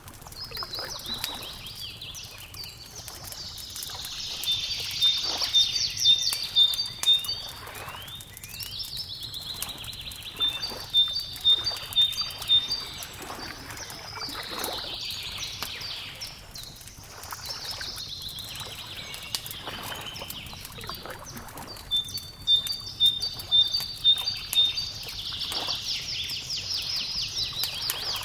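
A songbird sings the same phrase about four times, a few seconds apart: a trill with a quick run of even notes. Under it a wood fire crackles with small sharp pops.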